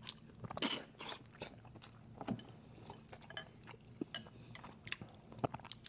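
People eating fish noodle soup: quiet chewing with scattered light clinks of utensils against a bowl.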